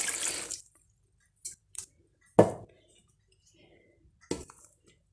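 A short hiss of something being poured from a glass into an aluminium pot of sliced zucchini. Then quiet kitchenware handling: a sharp knock about two and a half seconds in, a few light clicks and clinks, and a softer knock near the end.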